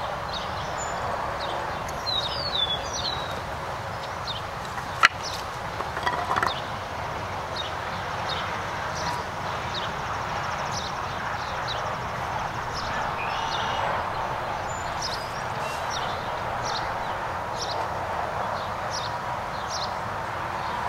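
Outdoor ambience: small birds chirping in short high calls, repeating about once a second, over a steady background hiss. A single sharp wooden knock about five seconds in as the cage's wooden frame pieces are handled.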